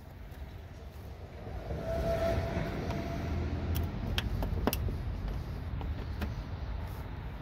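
A few sharp plastic clicks as fingers work a push-pin retainer clip on a car's radiator support, over a low steady outdoor rumble that swells about a second and a half in.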